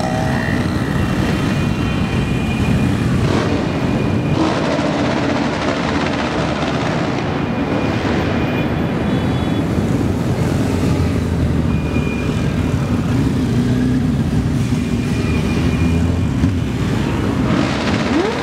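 A procession of motorcycles and scooters riding past one after another, their engines overlapping in a steady, continuous noise.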